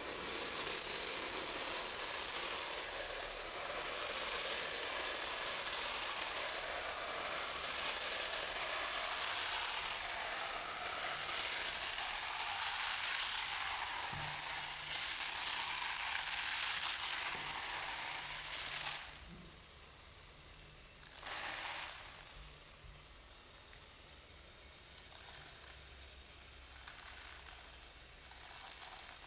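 Rice grains pouring in a thin stream from a swinging cone, pattering onto spilled rice and a flat surface as a dense, steady hiss. About two-thirds of the way through it turns quieter, with one brief louder rush shortly after.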